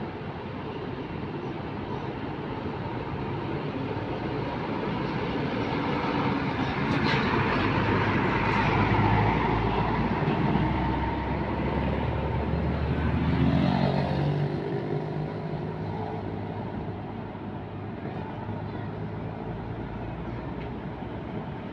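Intercity coach bus engine growing louder as the bus approaches, passing close by about halfway through, then fading as it drives away, its engine note dropping in pitch after it passes.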